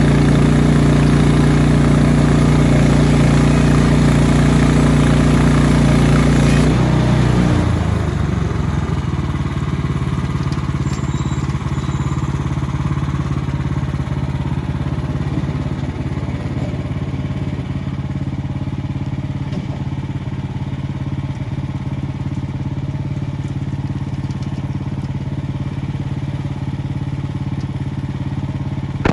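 Small gasoline engine of a bandsaw sawmill running fast and steady, then slowing down about seven seconds in and continuing to run at a lower, steadier speed.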